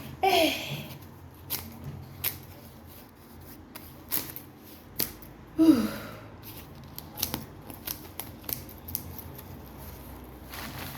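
Wrapping being pulled off a parcel by hand: crinkling and rustling with many scattered sharp clicks, and two short sounds that fall in pitch, one near the start and one about halfway through.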